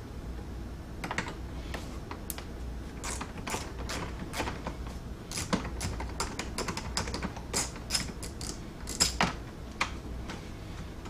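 A hand socket ratchet clicking in short, irregular strokes as bolts are worked in a car interior, with light taps of the tool against metal and plastic.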